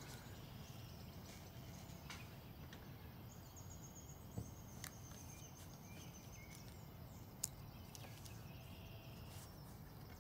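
Quiet room ambience with faint high chirping from outside, around the middle, and a few soft clicks from the notebook and pen being handled on the desk.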